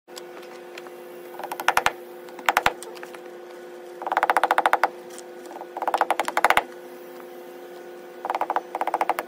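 A flat metal scraper worked against a wooden post in five short bursts of rapid ticking strokes, over a steady faint hum.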